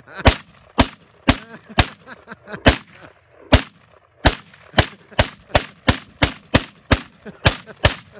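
Russian SKS semi-automatic rifle, 7.62×39 mm, fired in a fast string of about sixteen shots. The shots come about two a second, then quicker after a short pause near the middle, and each crack has a brief echo after it.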